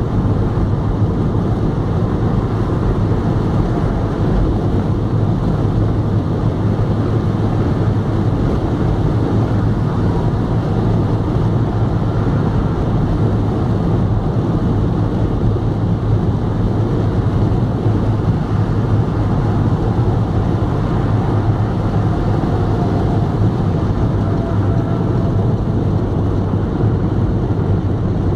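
Car cabin noise at motorway speed: a steady low drone of tyres, engine and wind heard from inside the car.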